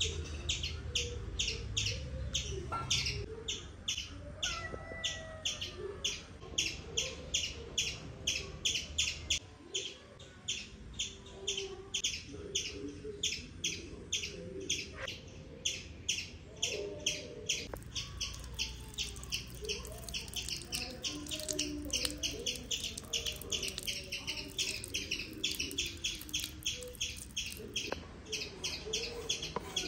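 Birds calling: a high chirp repeated about three times a second, with softer, lower warbling calls underneath.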